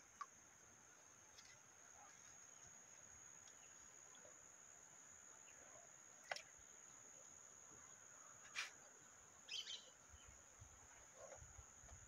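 Faint outdoor quiet with a steady, high-pitched insect trill, broken by a few brief sharp clicks about six and eight and a half seconds in.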